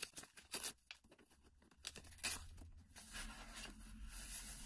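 A strip being pulled and torn off the pages of a book, with a few short rips, then the pages rustling as the book is lifted and handled.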